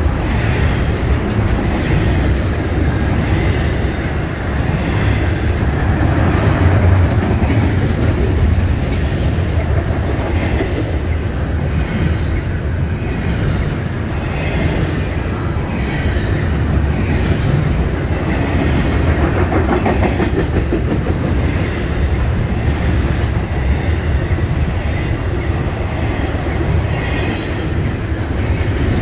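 Double-stack intermodal freight train's well cars rolling past: a steady rumble of steel wheels on rail, with repeated clacking as the wheels cross rail joints.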